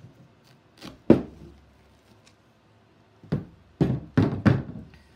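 Knocks and thunks from a punch needle frame being handled: a sharp, loud knock about a second in, then a quick cluster of four more in the second half.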